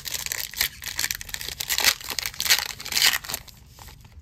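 Foil wrapper of a trading-card pack being torn open and crinkled by hand: a run of crackling tears, loudest in the second half, stopping near the end.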